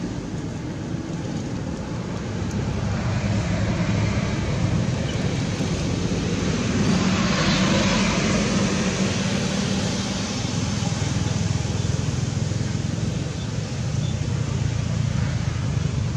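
Steady outdoor rumble and hiss that swells about halfway through and then eases off.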